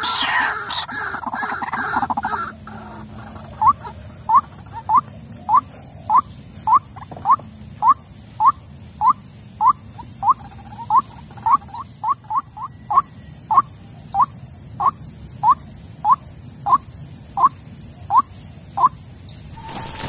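White-breasted waterhen calling: about two seconds of loud, dense, harsh calling, then a long, even series of short rising 'uwok' notes, roughly one every 0.6 seconds, that stops shortly before the end.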